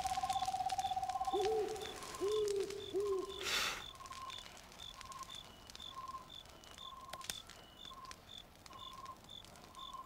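Night-time nature ambience: steady, evenly spaced chirps at a high and a lower pitch, a fast trilling call in the first two seconds, and three short hooting calls. A brief hiss comes about three and a half seconds in.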